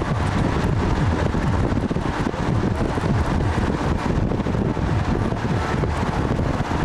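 Wind buffeting the microphone as it rides on a moving vehicle, with the vehicle's rumble underneath: a steady, loud, blustery noise.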